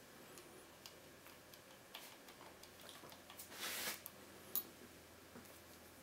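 Scattered faint metallic ticks of lock-picking tools, a tension wrench and a hook pick, going into the keyway of a five-pin euro cylinder, with a brief scrape just past halfway and one sharper tick a moment later.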